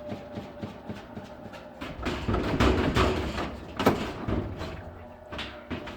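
Laundry being shifted by hand inside an Admiral washing machine's drum to unbalance the load: a rustling shuffle, then a sharp knock about four seconds in.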